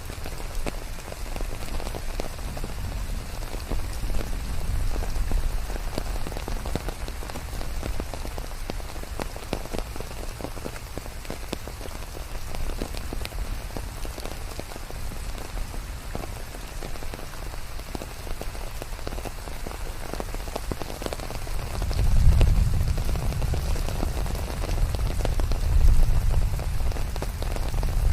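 Steady rain falling on a surface, with many separate drops ticking through the hiss. About three-quarters of the way through, a low rumble swells up, and it swells again a few seconds later.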